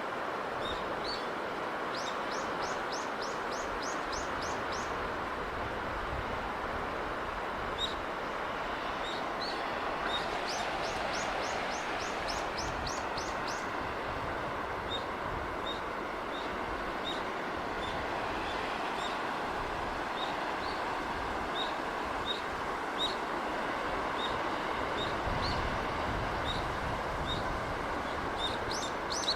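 Steady rush of sea breeze and surf, with small birds chirping over it: a fast trill of rising chirps a couple of seconds in and again about ten seconds in, and single chirps scattered throughout.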